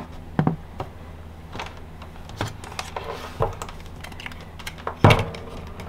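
Scattered clicks and knocks from a multimeter and its test leads being handled on a workbench, with one louder knock about five seconds in, over a steady low hum.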